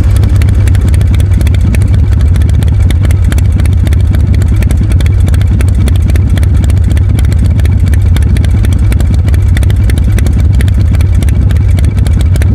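Engine idling steadily: a loud low rumble with fast, even firing pulses.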